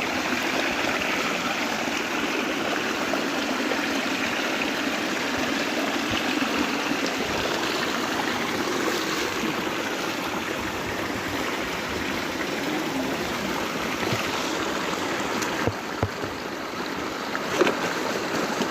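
Stream water running steadily, with a few short knocks near the end.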